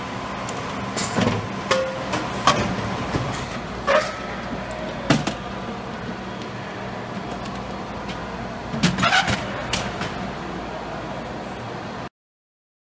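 Automated sweeper sorting machine running with a steady hum, broken by sharp clacks and knocks every second or so and a cluster of clatters about nine seconds in. The sound cuts off abruptly near the end.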